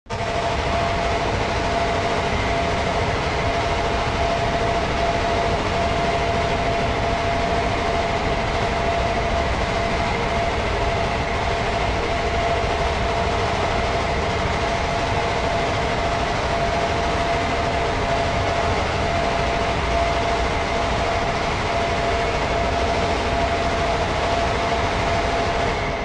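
Factory machinery engine running steadily: a loud, constant mechanical drone with a steady hum running through it, starting abruptly.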